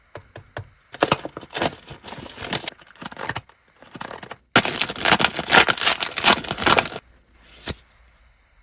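Card product packaging being opened by hand: the wrapper crinkles and tears in several bursts, with the longest stretch in the middle. A short last rustle comes near the end.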